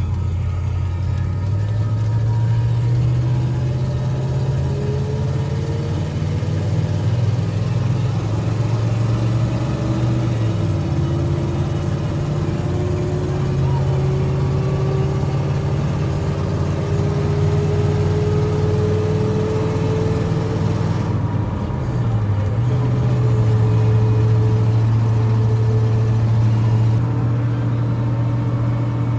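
Ford pickup truck driving, with engine and road noise heard from inside the cab. The engine tone slowly climbs as the truck gathers speed and drops back twice, about ten seconds in and again about twenty-two seconds in.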